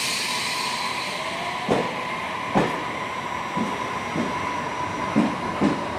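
A standing electric train hums steadily at the coupling end, while a high hiss of released air dies away in the first second. About six short, sharp knocks come at uneven intervals.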